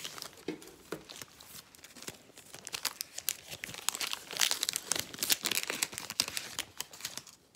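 A Megacracks trading-card pack wrapper being torn open and handled: a run of crackles, sparse at first, densest in the middle, thinning toward the end.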